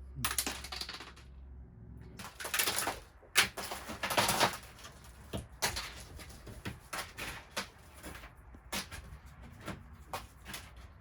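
Irregular clicks and knocks, with a few short rushing, scraping noises among them, like hard objects being handled.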